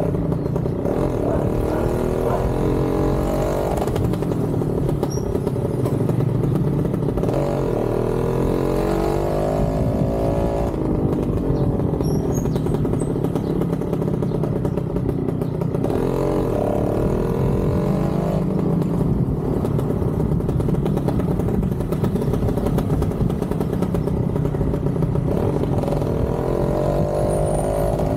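Motorcycle engine running under way, its pitch rising as it accelerates and dropping back at each gear change, several times over.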